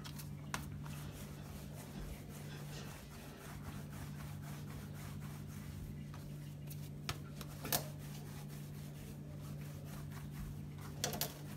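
Faint rubbing of palms rolling soft dough back and forth on a floured marble counter, over a steady low hum, with a few light clicks.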